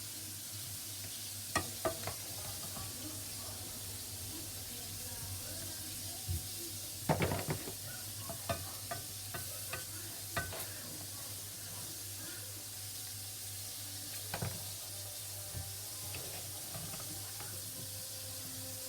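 Flour-dusted fish fillets frying in a pot of hot oil: a steady sizzle with scattered sharp clicks and pops, most of them bunched in the middle.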